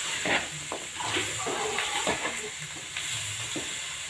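Duck pieces sizzling in a hot wok with sautéed spices: a steady hiss of frying, broken by the scrape and clack of a spatula stirring against the pan now and then.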